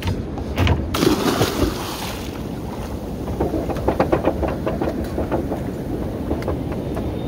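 Wind on the microphone and sea noise aboard a small open fishing boat, with a few knocks near the start and a quick, irregular run of knocks and clatter in the middle.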